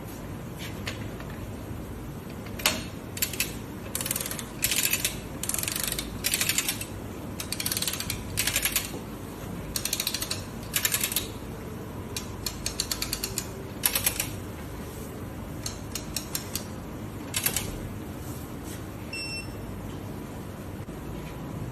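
TZTOOL Super Diesel pneumatic impact wrench hammering in many short on-off bursts for about fifteen seconds, working to break loose a fastener torqued to 1650 ft-lb. A steady background hum runs underneath.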